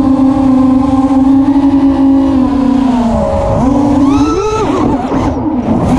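FPV quadcopter drone's electric motors and propellers whining steadily, the pitch sagging about halfway through, then swooping up and down as the throttle is worked.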